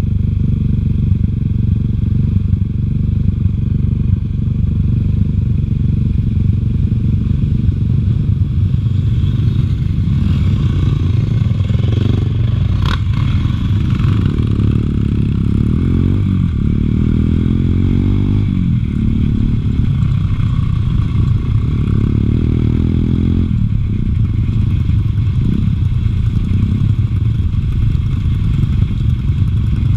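A Bosuer 250cc dirt bike's engine heard on board, running with steady rumble and then revving up and down repeatedly as the bike rides off along a dirt track. There is one sharp knock about 13 seconds in.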